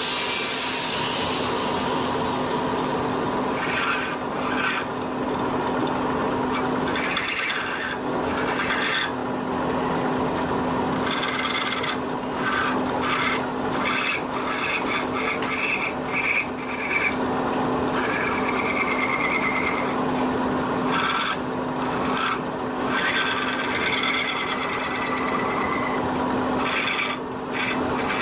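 Angle grinder sharpening a steel turning chisel for the first couple of seconds. Then a wood lathe runs with a steady hum while a hand-held chisel cuts the spinning wooden spindle in many short, irregular scraping strokes.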